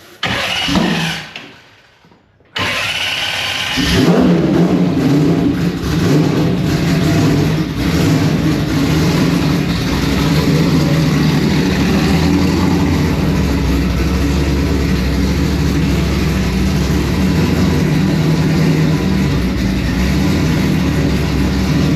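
Drag-racing Chevy Nova's engine being cranked by the starter and catching about four seconds in, then running steadily and loudly at idle.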